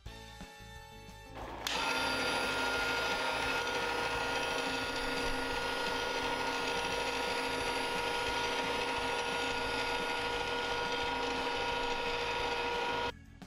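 Battery-powered motor of a Hot Wheels Super Ultimate Garage's orange screw elevator running with a steady whine. It starts suddenly about two seconds in and cuts off near the end.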